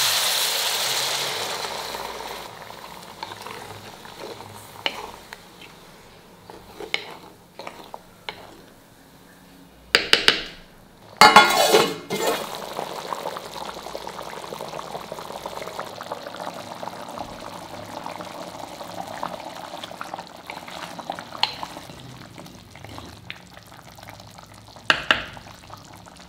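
Prawns sizzling in hot oil in a pan as masala is poured over them, the sizzle dying down over the first few seconds, followed by a spoon stirring and clinking in the pan. Two loud short bursts of noise come about ten and eleven seconds in, after which the curry simmers and bubbles steadily, with an occasional clink of the spoon.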